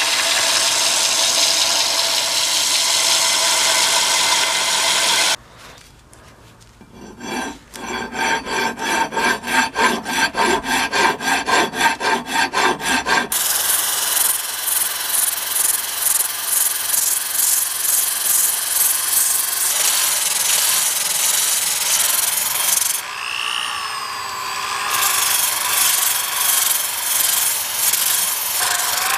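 A benchtop belt sander fitted with a coarse 24-grit belt grinding a laminated hickory axe handle. After a short pause, a hand rasp scrapes the wood in even strokes, about two a second. Then a rotary disc sander runs over the handle, its sound dipping briefly about two-thirds of the way through.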